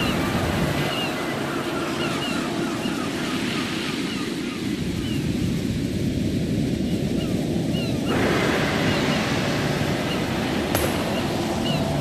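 Ocean surf: a steady wash of breaking waves on a sandy beach, swelling suddenly about eight seconds in as another wave breaks.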